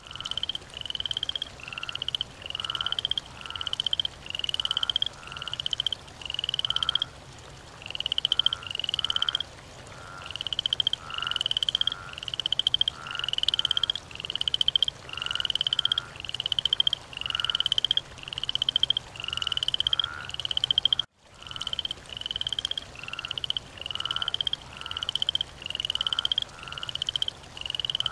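A frog calling over and over, a steady run of short pulsed croaks that rise slightly in pitch and swell in loudness, more than one a second, with a brief cutout about three quarters of the way through.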